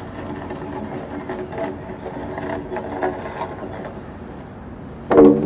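Acoustic noise performance outdoors: scattered clicks and knocks and faint pitched tones over a steady rumble, then a short, loud pitched blast about five seconds in.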